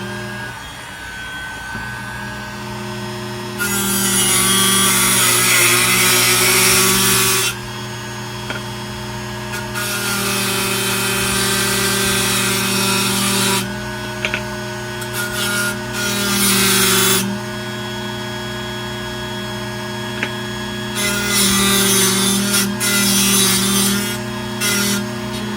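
A small power tool's motor running steadily, with four long spells of loud grinding as it cuts into the metal case of a Ronson lighter.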